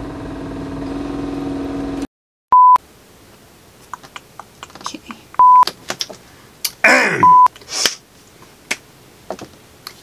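A short music sting, then three short, loud 1 kHz bleep tones, each about a quarter second long, spaced a few seconds apart. Faint clicks fall between them, and a brief falling sound comes just before the third bleep.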